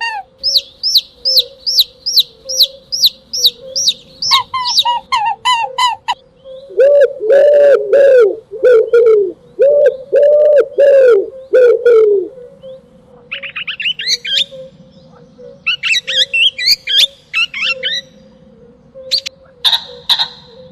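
A sequence of bird calls: a fast run of high, repeated falling chirps, then a run of lower, louder calls in the middle, then bursts of twittering, over a faint steady tone.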